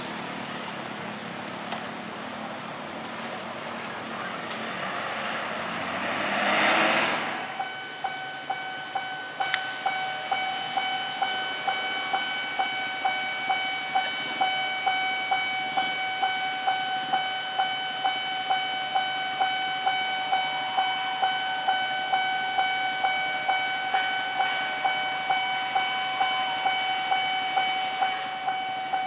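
Road traffic going by, swelling to a loud rush of a passing vehicle that breaks off about seven seconds in. Then a railway level-crossing warning bell rings steadily, about two strikes a second over a ringing tone, signalling an approaching train.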